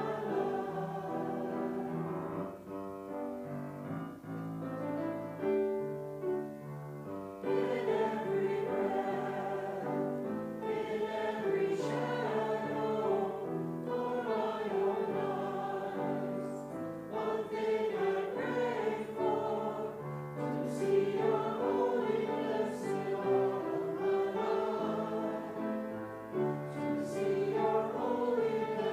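Church congregation singing a hymn together, with instrumental accompaniment.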